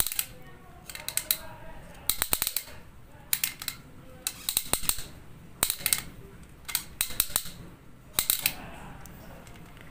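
Hook winch gear of a Huina 1:60 diecast crawler crane clicking as it is turned by hand, in quick bursts of clicks a little over once a second. The winch is catching slightly as it turns.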